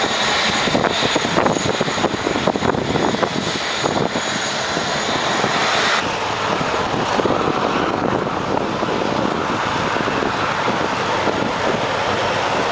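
Airbus A380 jet engines running as a loud, steady rush. The sound changes abruptly about six seconds in, from a rougher, crackling noise to a smoother one.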